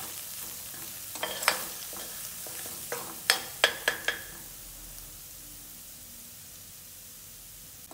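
Minced garlic sizzling in hot oil in a pot while a metal spoon stirs it, the spoon clicking sharply against the pot once or twice early on and several times in quick succession around the middle. After that only the steady sizzle of the garlic remains.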